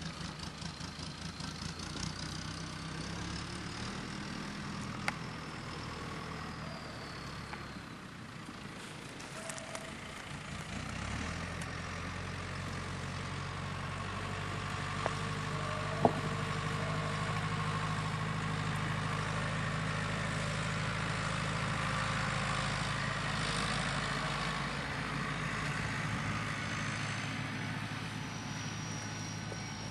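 A tractor engine running steadily, a low, even hum, with one sharp click about halfway through.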